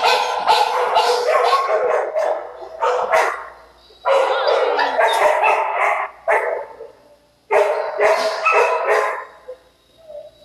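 Dogs in a shelter kennel barking loudly in three rapid volleys with short pauses between.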